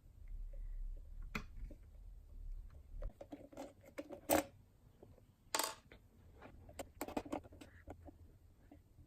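Small clicks, taps and scrapes of hands working on an ultrasonic humidifier's plastic parts and wiring during disassembly, with a sharp knock about four seconds in and a short scrape about a second later. A low hum stops about three seconds in.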